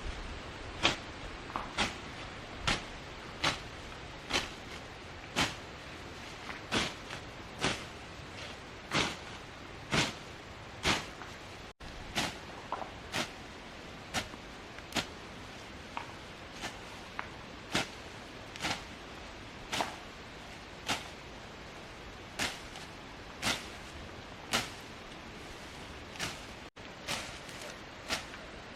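A steady series of sharp blows, about one a second, each a short crack over a quiet hiss, as of a blade or tool striking wood or vegetation again and again.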